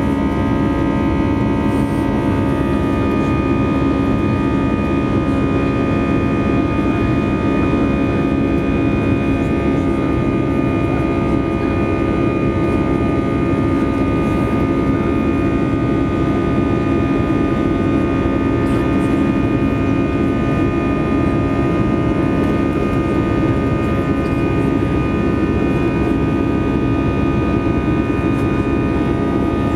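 Airbus A320 jet engines and airflow heard inside the passenger cabin during climb-out: a steady, even rumble with several constant humming tones over it.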